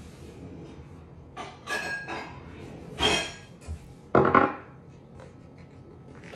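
A few clinks and knocks of glass and ceramic tableware on a wooden table. The loudest comes about four seconds in, as a drinking glass is set down.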